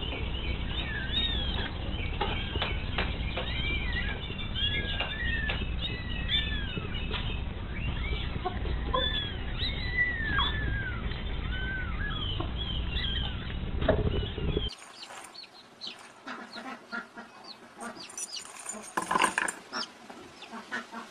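Many young birds peeping, a dense run of short rising-and-falling cheeps over a low rumble. About fifteen seconds in it cuts to a quieter scene with scattered clicks and a few chirps.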